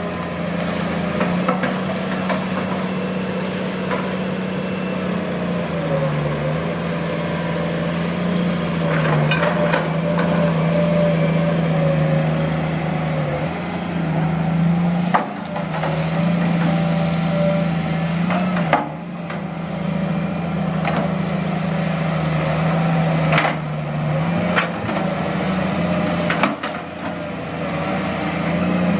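Sumitomo hydraulic excavator running steadily, its engine note dipping and recovering as the load changes, with a wavering higher whine over it. About half a dozen sharp knocks come through, most of them in the second half.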